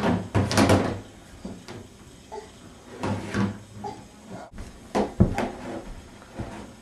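Plastic laundry basket knocking and scraping against a plastic toddler slide as a baby inside rocks it back and forth, in irregular clusters of bumps with a sharp knock about five seconds in.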